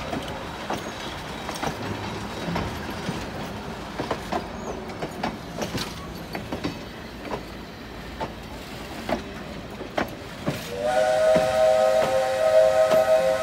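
Passenger coaches rolling slowly past, their wheels clacking irregularly over rail joints and a grade crossing. About eleven seconds in, a coal-burning 1928 0-4-0 tank steam locomotive's whistle sounds one long, loud, steady chord of several notes at once.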